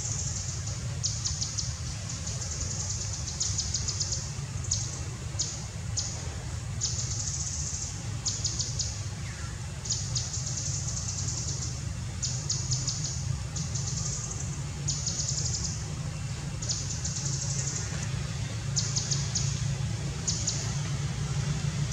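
Rapid high-pitched chirping in short trains, one every second or so, over a steady low rumble.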